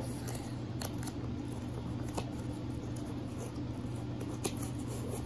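Hands handling small play items: a few soft clicks and taps over a steady low hum.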